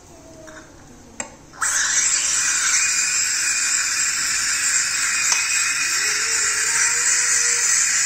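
Morphy Richards coffee maker's steam nozzle: a click, then about a second and a half in a loud, steady hiss of steam starts and keeps going, steaming milk.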